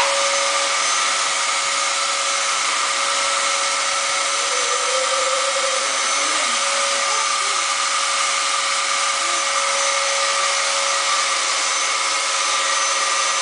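Vacuum cleaner running steadily: a constant motor whine over a rushing hiss of air.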